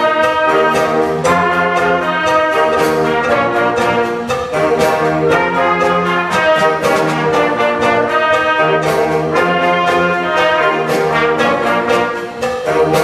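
A wind ensemble playing loudly: brass and woodwinds in sustained chords, with regular percussion strokes marking the beat.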